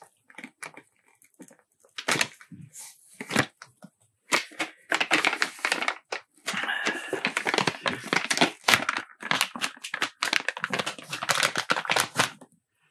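A sealed plastic pouch of fish attractant being torn open and crinkled by hand: scattered sharp rips and crackles at first, then dense crinkling from about four seconds in until near the end.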